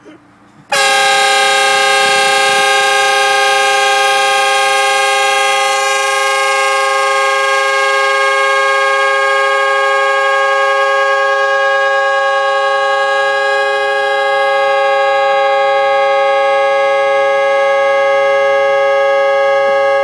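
Air-powered train horn fitted to an Acura Integra, blowing one continuous, loud chord of several notes. It starts about a second in and is held without a break as the car's air tank is drained.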